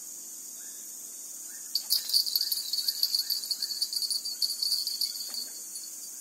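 Insects buzzing steadily at a high pitch. About two seconds in, a louder, fluttering buzz joins them, such as a cicada starting up, and keeps going.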